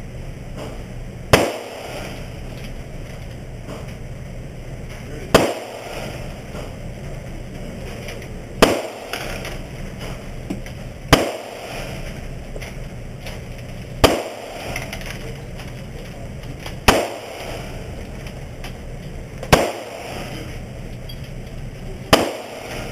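Eight single shots from a semi-automatic pistol, fired slowly one at a time about every three seconds. Each is a sharp crack with a brief echo, over a steady background hum.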